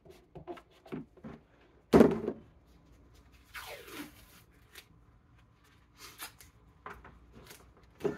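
A clear plastic storage tub is set down on a tabletop with one loud knock about two seconds in. Soon after, a short rasping pull of paper tape coming off its roll, with small clicks and rustles of the tape and tub being handled.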